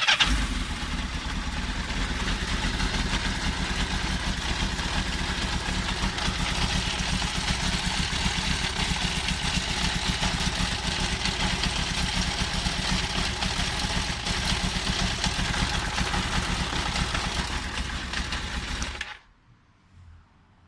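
Kawasaki Zephyr 750's air-cooled inline-four engine idling steadily, cutting off suddenly about nineteen seconds in.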